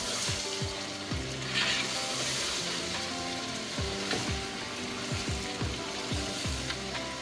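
Chicken, vegetables and tomato sauce sizzling in a large aluminium pot as a metal spoon stirs and scrapes through it. Background music with a deep beat plays throughout.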